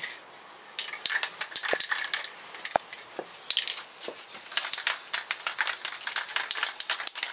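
Crinkling plastic sheeting: quick, irregular crackles and clicks that start about a second in and grow denser toward the end.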